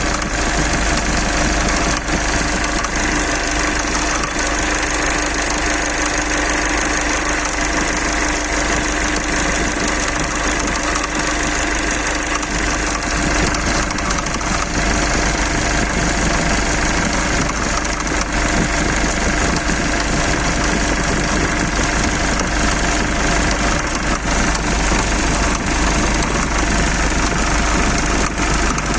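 Mitsubishi 4D56 four-cylinder diesel engine idling steadily with a repeated knock, the knock being the fault the recording is made to show.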